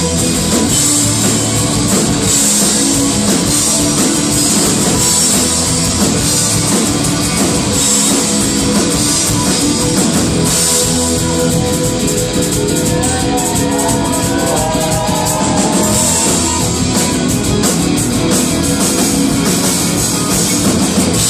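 Live rock band playing an instrumental passage without vocals: drum kit and guitars, loud and steady, recorded from within the audience.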